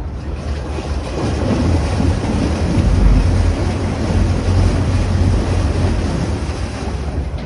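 Mercury Avator electric outboard's propeller churning water in a clear tank: a rushing, sloshing water noise with a low rumble that builds over the first few seconds as the propeller spins up.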